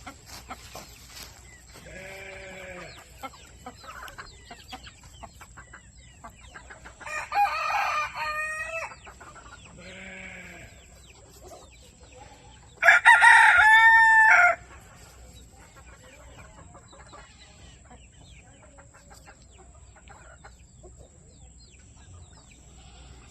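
Roosters crowing: two loud crows of about one and a half to two seconds each, the first about seven seconds in and the second, the loudest, about thirteen seconds in. Two fainter, lower calls come earlier, around two and ten seconds in.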